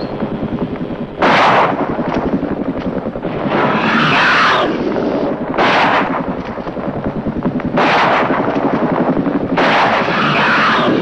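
Gunshots from an old film soundtrack: about six loud shots a second or two apart, each trailing off in a rough, noisy tail, over a steady background.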